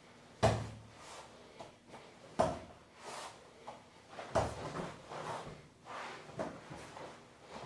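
Thumps and slaps of a body, hands and bare feet landing on a floor mat during a Brazilian jiu-jitsu hip switch drill. The loudest come about half a second, two and a half and four and a half seconds in, with lighter knocks between.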